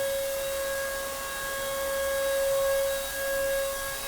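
Steady, high-pitched whine of a power tool's motor running continuously on a wall under renovation, swelling and easing slightly in loudness.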